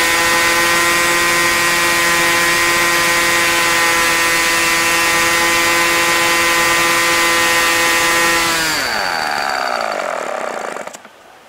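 A .40-size two-stroke model airplane glow engine running steadily at full throttle on Omega FAI fuel, turning an APC 11x6 propeller. About nine seconds in it is cut: its pitch falls as it dies, and it winds down to a stop near the end.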